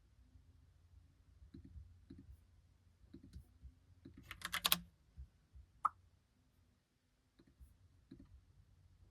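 Logitech POP Keys mechanical keyboard being typed on slowly, its round typewriter-style keycaps clacking in scattered single keystrokes. A quick run of several louder clacks comes about four and a half seconds in.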